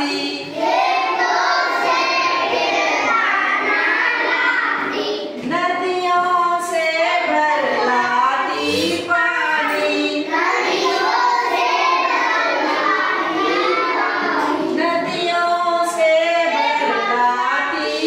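A class of young children singing a Hindi action poem together in unison, line after line with short pauses between phrases.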